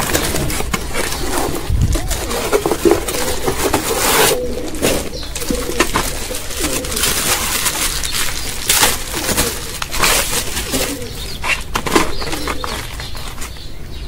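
Cardboard and plastic bubble wrap crackling and rustling as a shipping package is opened by hand, in irregular handling noises with several louder crinkles. Birds calling in the background.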